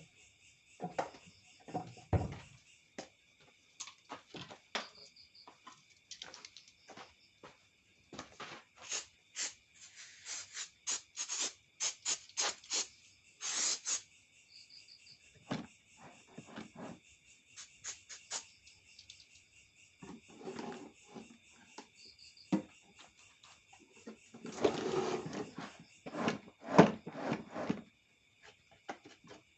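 Crickets chirring steadily, with scattered clicks, knocks and short scraping sounds, in clusters about a third of the way in and again near the end.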